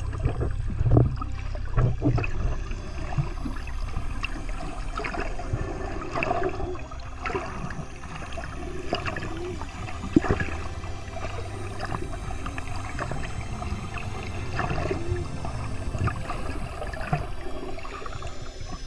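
Water sloshing and gurgling with scattered clicks and knocks over a low rumble, as heard through a camera in or at the water.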